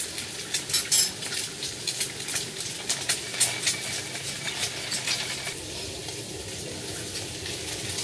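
Eggs frying in a hot pan: a steady sizzle with frequent sharp crackles and pops, which thin out after about five seconds.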